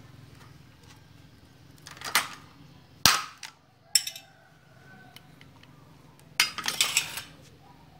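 Sharp clacks and knocks of a hand tool at work on a wooden and aluminium frame: single sharp cracks about two, three and four seconds in, the one near three seconds the loudest, then a quick run of knocks near the end.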